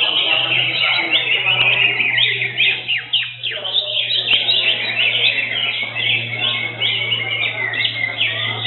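Cucak hijau (greater green leafbird) singing: a continuous stream of fast, dense chirps and twitters, with a steady low hum underneath.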